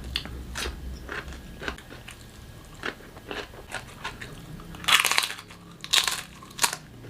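Close-miked eating: a person biting and chewing crunchy food, with a run of crisp crunches and two louder bursts of crunching about five and six seconds in.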